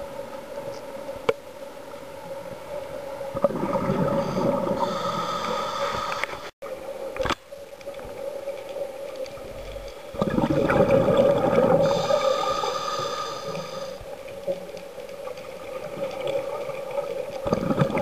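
Scuba regulator breathing heard underwater: bursts of bubbling exhalation every several seconds, over a steady hum.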